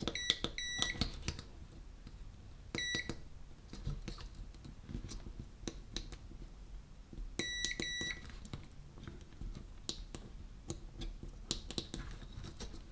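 Digital multimeter continuity buzzer giving short beeps in small groups: two near the start, one about three seconds in, and a quick run of three around eight seconds in. The probes are on the contacts of the internet radio's front-panel push-button switches, and a beep means the switch closes. Between the beeps come faint clicks of the probe tips and buttons on the circuit board.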